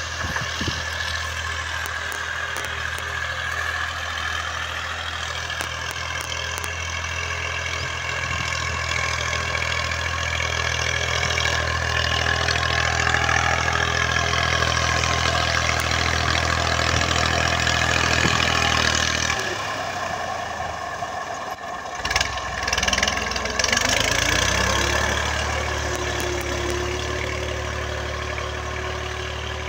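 Tractor's diesel engine running as it pulls a plough through the field. About twenty seconds in the engine sound drops away for a couple of seconds, then comes back with a few rattling knocks and a note that rises in pitch and settles as the engine picks up again.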